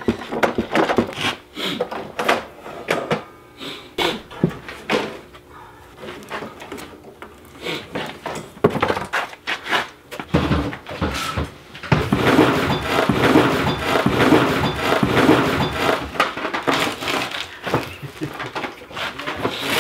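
A rack-mounted crossover is slid out of a metal-railed road case and the gear is handled, making scattered metal clunks, knocks and scrapes. Near the middle there is a denser stretch of rattling and scraping.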